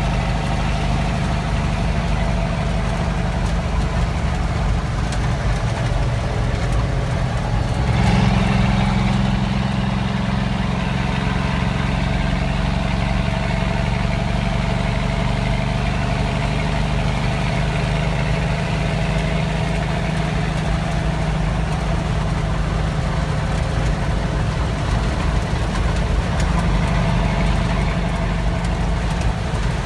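Semi truck's diesel engine running steadily. About eight seconds in, its pitch steps up and it grows briefly louder, then runs on at the higher note.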